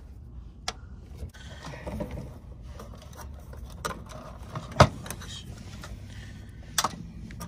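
Wires and hand tools being handled inside an air handler's sheet-metal control box: scattered light clicks and rattles, with one sharp click a little before the middle and a quick double click near the end.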